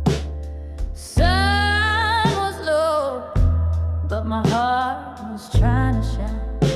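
Slow blues ballad music: deep held bass notes, steady drum hits, and a lead melody line that wavers with vibrato.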